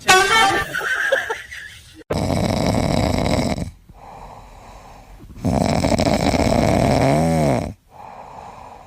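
Loud snoring: two long, heavy snores about three seconds apart with quieter out-breaths between, after a brief high-pitched sound at the very start.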